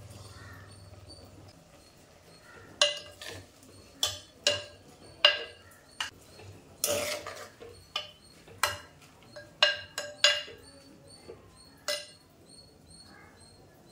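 A metal ladle stirring leafy greens in a clay pot, clinking and scraping against the pot about a dozen times at an uneven pace, each clink with a short metallic ring.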